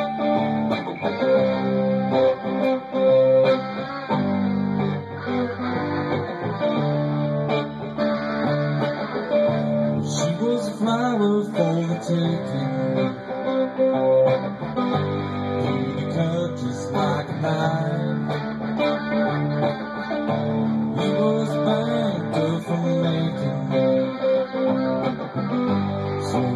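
Guitar-led country music, strummed and plucked guitars playing steadily.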